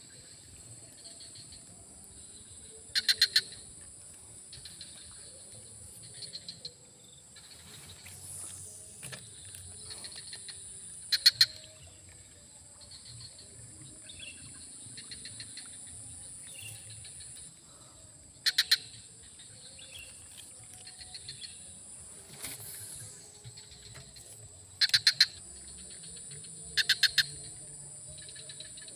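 Steady high-pitched drone of insects at a grassy pond edge, broken six times by short, loud rattling bursts of rapid clicks.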